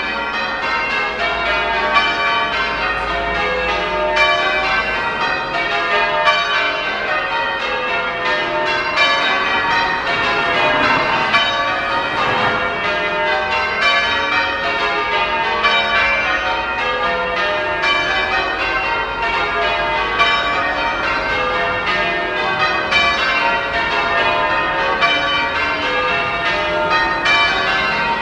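Church tower bells change ringing: the bells strike one after another in a rapid, even succession that never pauses. They are ringing the closing part of a service touch.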